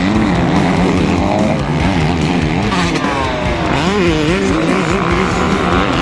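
Motocross dirt bike engines revving up and down as riders work the throttle over the track, with a sharp rise in revs about four seconds in.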